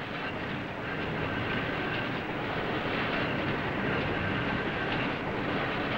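Large sheet-fed perfecting printing press, which prints both sides of the sheet, running at speed: a steady, dense mechanical noise.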